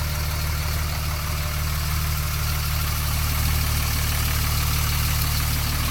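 Cummins 5.9-litre inline-six turbo diesel in a 2004 Dodge Ram 3500 idling with a steady, even hum.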